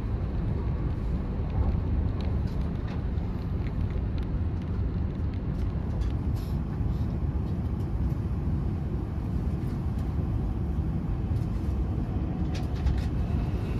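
Steady low running noise of a Shinkansen E5 series bullet train heard from inside the passenger cabin, as the train runs into a station.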